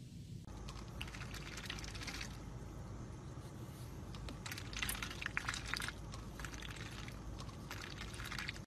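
Pet duck nibbling and dabbling with its bill at a muffin and a cup of water: three bursts of quick, crackly clicks over a low, steady car-cabin rumble.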